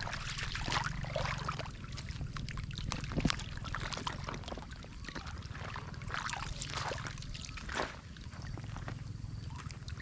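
Running water trickling and splashing, with irregular splashes and sloshes throughout, over a steady low hum.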